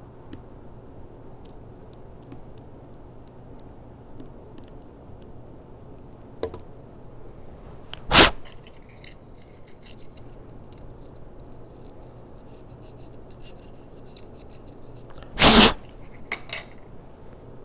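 Hand tools clinking and clattering on a workbench top: scattered light clicks, a sharp clank about eight seconds in, and a louder, longer clatter near the end followed by a couple of small clicks.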